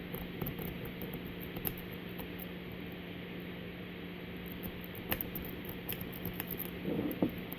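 Light scattered clicks and scratches of a lock-pick rake being worked in the keyway of a four-pin Master Lock Magnum M187 padlock, more frequent from about five seconds in, over a steady low hum.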